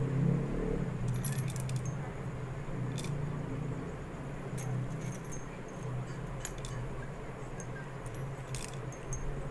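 Coffee beans tipped a few at a time from a metal scoop into a hand grinder's hopper, giving scattered light clicks and rattles in several small bunches, over a low steady hum.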